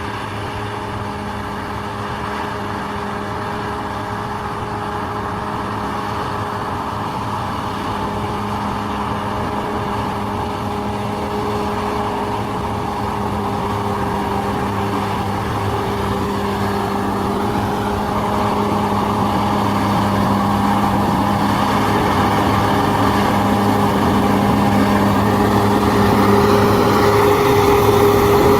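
Bulldozer's diesel engine running steadily, slowly growing louder.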